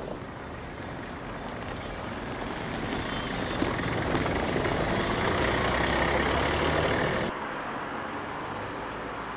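A small car driving past, its engine and tyre noise building over a few seconds and then cutting off suddenly.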